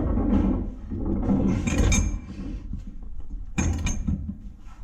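Hand tools clinking, scraping and knocking on the Bronco's rusted bolts and body metal, with two sharper metallic hits about two seconds in and near the end.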